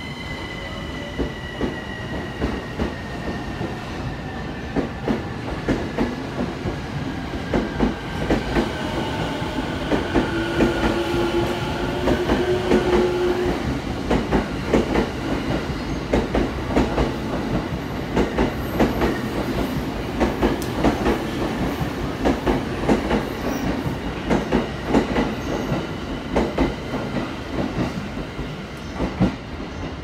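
A 15-car JR East electric commuter train pulling out of the station. Its traction motors whine in pitches that glide as it gathers speed over the first ten seconds or so, then the wheels clack over the rail joints in a fast, uneven rhythm as the cars roll past.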